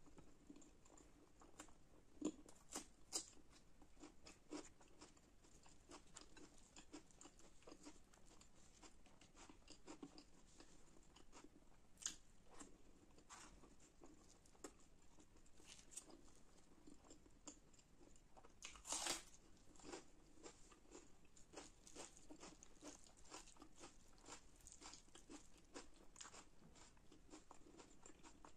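Quiet, close-miked chewing and crunching of chhole bhature (fried bread and chickpea curry), with many soft wet mouth clicks; a louder crunch comes about nineteen seconds in.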